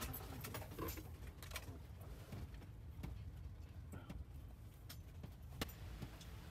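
Low steady rumble of a vehicle heard from inside its cab, with a few faint clicks scattered through.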